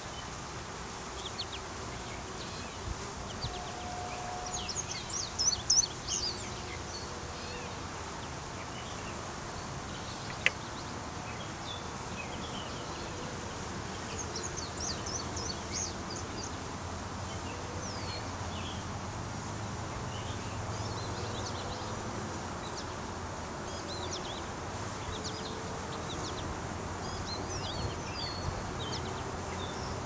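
Steady hum of a honey bee swarm clustered on a branch. Quick high bird chirps come in bunches about five seconds in and again about fifteen seconds in, and there is a single sharp click about ten seconds in.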